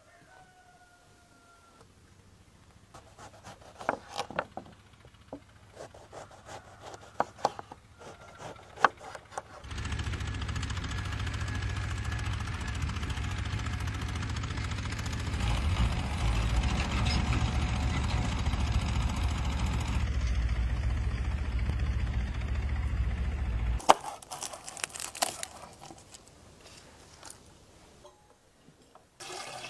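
A knife slicing an onion on a wooden cutting board, a run of sharp irregular taps and crunches. About ten seconds in, a farm tractor's diesel engine runs with a steady low rumble, which cuts off abruptly some fourteen seconds later, followed by a few clicks and taps.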